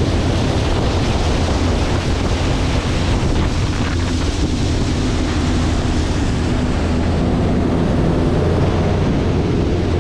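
Bass boat running fast across open water: loud, steady wind buffeting the microphone over the outboard motor running and water spraying past the hull.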